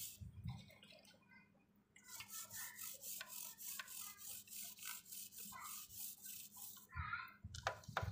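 Toothbrush bristles scrubbing a diesel-soaked motorcycle drive chain, in quick, even back-and-forth strokes. A brief pause comes about a second in.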